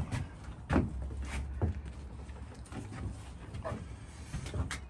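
A new CC Rider motorcycle seat being fitted onto the bike's frame: several short knocks and bumps spread through, with rubbing and handling noise between them.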